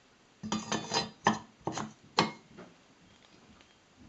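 About six sharp clinks and knocks, some ringing briefly, between half a second and two and a half seconds in: metal parts handled on a wooden workbench as the chimney and burner are set in place on a model hot air engine.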